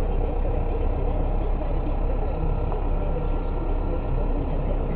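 Steady car engine and tyre noise heard inside the cabin, driving along a gravel road.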